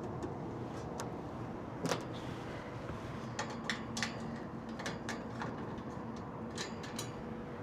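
Scattered light clicks and metal taps from screws being worked loose on a sheet-metal access door of a Carrier HVAC unit, over a steady background hum. The loudest tap comes about two seconds in, and a quick cluster of taps follows from about three to seven seconds in.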